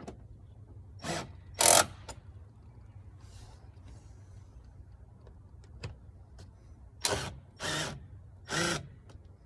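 Milwaukee M12 right-angle impact driver running in five short bursts, driving the air cleaner box cover screws back in a cross pattern: two bursts about a second in, three more near the end.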